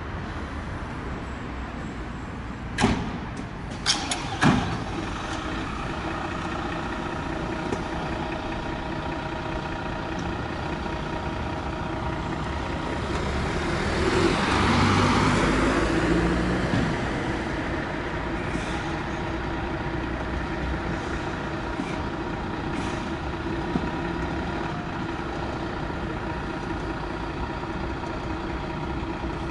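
Diesel fire engine idling steadily, with three sharp knocks about three to four and a half seconds in. Around the middle there is a louder hiss of air, with the engine note shifting, as it begins to creep forward.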